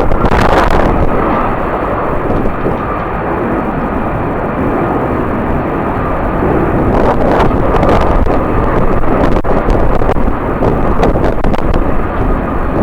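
Jet airliner engines running with a steady whine, mixed with strong wind buffeting the microphone in gusts.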